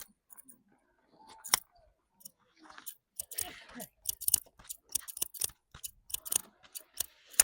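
Barber's scissors snipping hair: a few scattered snips at first, then a quick run of about four snips a second from about three seconds in.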